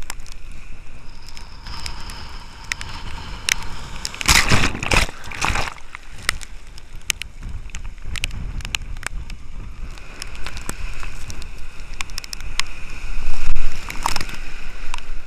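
Rough surf sloshing and splashing right at the microphone, which is held at water level, with many small sharp splashes. Breaking waves wash over it loudly about four seconds in and again near the end.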